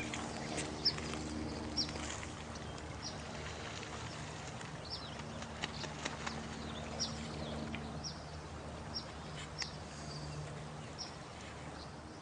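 Running water under short, high bird chirps, each sliding down, about a dozen scattered through, with a low steady hum underneath.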